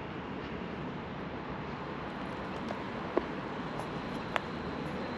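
City street background of steady distant traffic noise, with two short sharp clicks about three and four seconds in.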